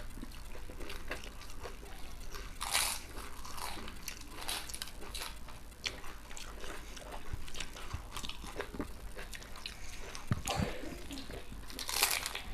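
Crunching bites and chewing of papdi chaat, its crisp fried wafers crackling, with two louder crunches about three seconds in and near the end.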